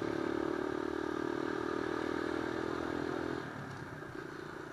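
Supermoto motorcycle engine running steadily while riding, heard from an onboard camera. About three and a half seconds in, the engine note drops and gets quieter as the throttle eases off.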